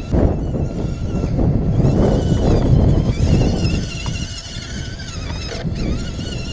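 Small electric motors and gears of radio-controlled crawler trucks whining as they drive, the pitch wavering as the throttle changes, over wind buffeting the microphone.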